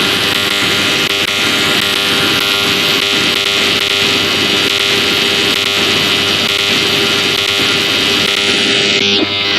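Black MIDI played back as MIDI piano: a huge mass of simultaneous piano notes blurs into a loud, dense wall of noise with a few steady tones running through it. Near the end the high part of the noise briefly drops away, then returns.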